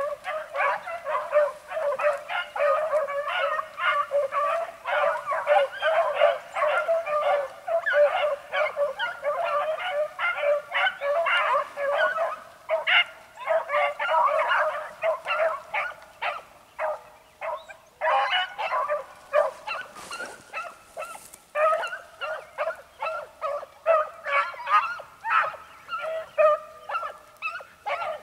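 A pack of beagle hounds baying in full cry on a scent trail during a chase, many voices overlapping. The cry thins briefly a little past the middle, then picks up again.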